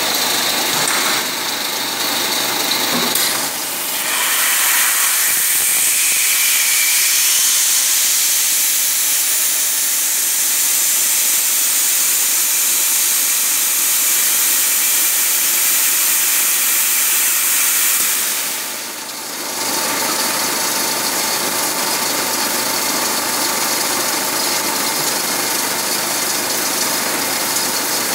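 5-litre accumulator blow moulding machine running with a steady mechanical hum. A loud hiss starts about four seconds in and holds until about eighteen seconds, then the level dips briefly before the steady running noise carries on.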